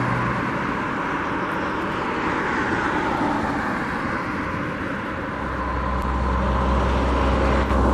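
Road traffic going by, a steady rush of tyre and engine noise, with a deep rumble swelling about five seconds in.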